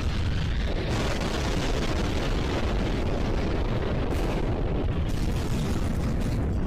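Steady loud roar of rushing floodwater, with a heavy low rumble.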